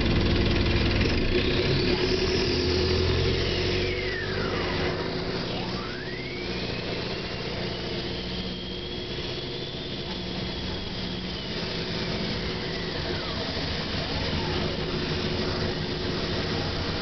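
Inside an Optare Solo SR single-deck bus on the move: the engine runs steadily, heavier for the first few seconds. Over it, a high whine falls, rises again, holds for several seconds and falls away near the end.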